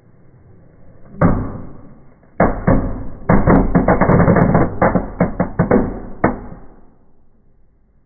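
A red crackling firework, the 'Knallbonbon rot', going off. One sharp bang comes about a second in, then a quick, irregular run of cracks and pops for about four seconds that dies away near the end.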